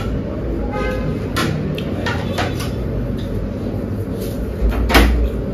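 A few short knocks and clicks over a steady low hum, the loudest one near the end.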